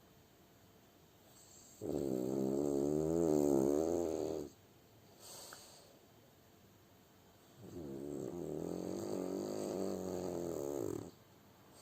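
French bulldog snoring: two long, rattling snores about three seconds each, with a wavering pitch and a quieter breath between them.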